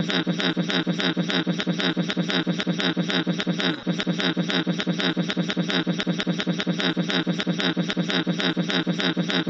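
Rapid, even castanet-style clacking rhythm, about five to six strokes a second, each stroke carrying a steady low tone, with a brief break about four seconds in.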